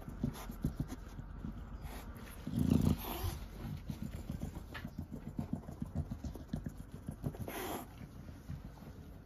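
Chow Chow mother dog panting and sniffing close by, a quick run of soft breaths, with a louder low thump about three seconds in and a short hiss near the end.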